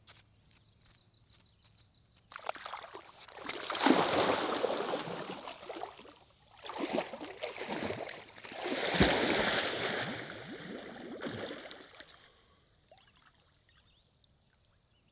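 Lake water splashing as a person wades in through the shallows and then plunges in to swim, in two long bouts of splashing with the biggest splash about nine seconds in; it dies away to small ripples about twelve seconds in.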